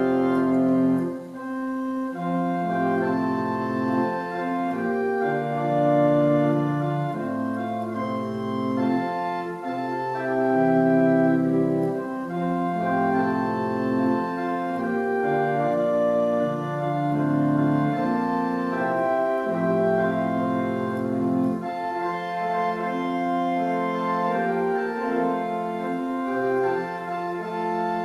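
Church organ playing a hymn tune in slow, sustained full chords over a moving bass line.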